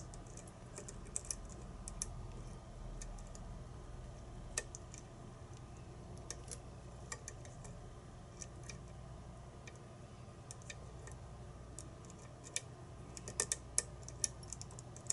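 Lock picks clicking and ticking against the pin tumblers inside a challenge lock's core as it is picked without the pins setting. The light clicks are scattered, with a quicker run of louder clicks near the end, over a faint steady low hum.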